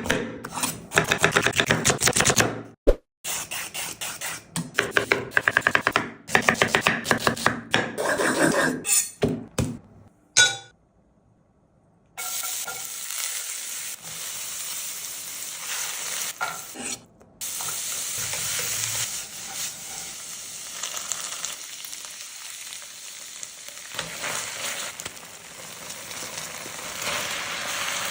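Food frying in a pan while being stirred with a utensil. For the first ten seconds or so there are rapid sharp knocks and scrapes; after a brief pause a steady sizzle takes over.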